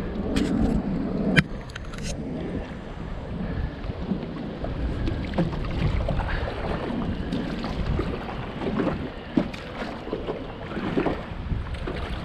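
Wind buffeting the microphone aboard a small boat, with scattered knocks and clicks; a sharp knock about a second and a half in is the loudest.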